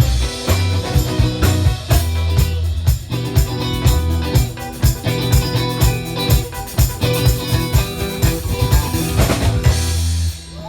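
Live rock band playing an instrumental passage with drum kit, bass and electric guitar, stopping shortly before the end.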